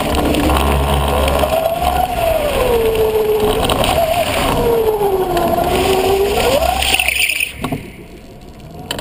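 Electric go-kart's three-phase motor and controller whining as it drives, the pitch rising and falling several times with speed, over tyre and road rumble on paving. About seven and a half seconds in, the whine stops and the sound drops sharply.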